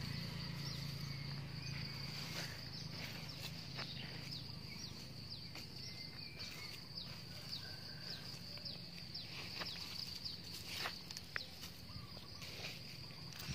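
Insects chirring steadily on one high pitch, with scattered soft rustles and clicks of hands working crumbly garden soil.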